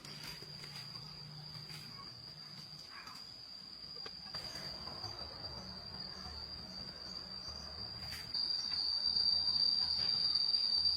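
Insects, crickets or cicadas, buzzing steadily at one high pitch. The sound grows louder about eight seconds in.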